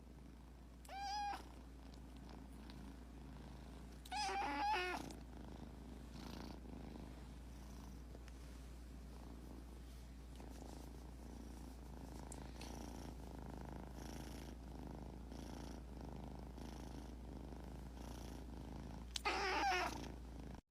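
Domestic cat giving three short, high squeaky cries, the kind of squeak a cat lets out while yawning: one about a second in, a longer one at about four seconds, and another near the end. A faint purr runs in between.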